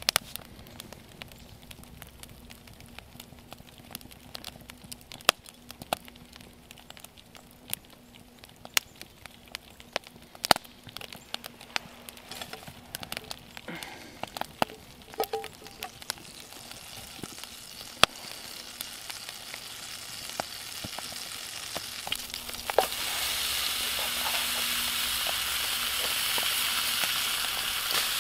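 Butter in a pan over a pine campfire, with scattered sharp pops and crackles. The sizzle rises and then jumps to a steady, loud frying hiss about 23 seconds in, as shaved ribeye steak goes into the hot pan.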